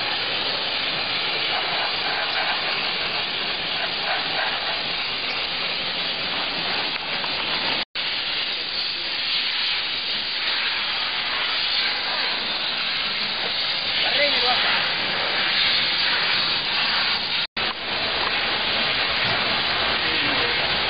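High-pressure steam cleaner's spray gun hissing steadily as it jets steam into a car's engine bay. The hiss cuts out abruptly twice, near the middle and near the end, and picks straight up again.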